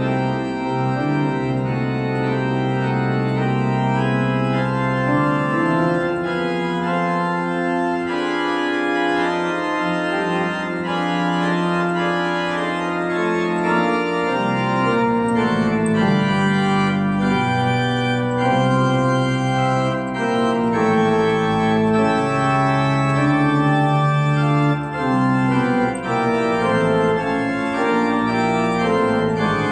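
Pipe organ playing a postlude in full sustained chords. The deep bass line drops out about five seconds in and comes back about fourteen seconds in.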